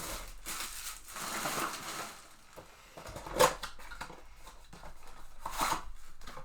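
Foil trading-card pack wrappers crinkling and tearing open, with cards being handled, and one sharp tap about three and a half seconds in.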